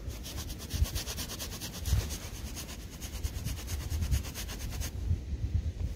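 Fingers rubbing caked soil off a crusty George III copper halfpenny: a fast, even, scratchy rubbing that stops near the end, over low handling bumps.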